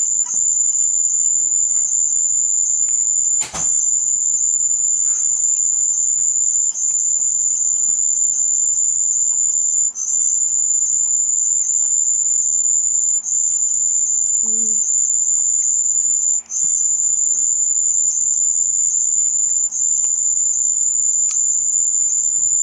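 A loud, steady, very high-pitched electronic tone, held continuously with brief dips about every three seconds, and a sharp click at one of the dips about three and a half seconds in.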